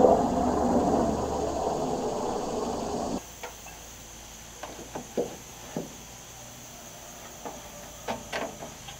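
A helicopter passing overhead, a steady drone with a low hum that cuts off abruptly about three seconds in. After that come scattered light knocks and taps of wood being handled and fitted overhead under a roof eave.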